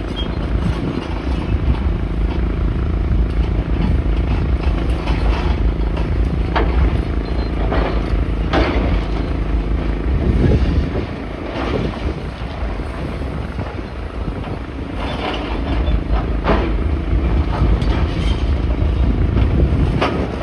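A heavy engine running steadily, with scattered knocks and clanks; the engine drops away for a couple of seconds about halfway through.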